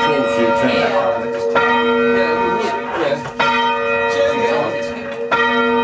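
Church bell rung full circle from its rope, striking about every two seconds, each stroke ringing on into the next.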